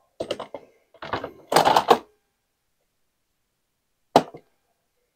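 Plastic cover panel of a Honda EU3000is generator clattering and knocking against the housing as it is fitted back into place: a burst of knocks and rattles over the first two seconds, then one sharp knock about four seconds in.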